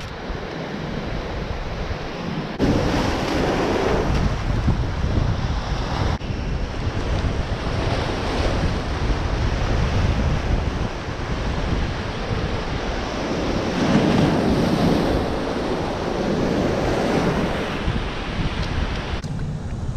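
Surf breaking and washing over a rocky shore, with wind buffeting the microphone. The rush of the waves swells louder a few seconds in and again about two-thirds of the way through.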